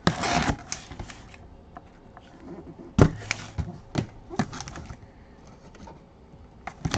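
A blade slitting the packing tape on a cardboard box, a short scratchy rush, followed by scattered clicks and knocks of the box being handled, the sharpest about three seconds in, and the rustle of its cardboard flap being lifted near the end.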